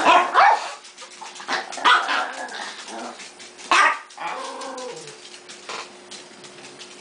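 Small dogs barking and yipping in sharp bursts, loudest in the first half-second and again about two and four seconds in, with fainter yips after.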